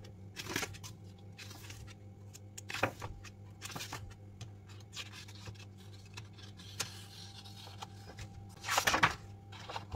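Pages of a large, heavy art book being turned by hand: several short paper rustles, the longest and loudest about nine seconds in, over a low steady hum.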